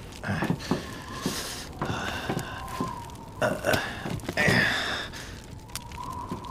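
A man's wordless vocal sounds, short grunts and breathy noises with no words, over the clicks and pops of a crackling campfire. The loudest vocal sound comes about four and a half seconds in.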